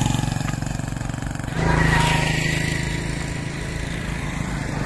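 Motorcycle engine running steadily. The engine note changes abruptly about one and a half seconds in.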